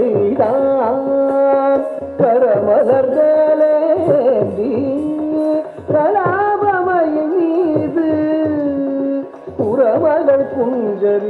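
Carnatic vocal music: a singer holds long, ornamented notes in phrases of a few seconds each, with accompaniment.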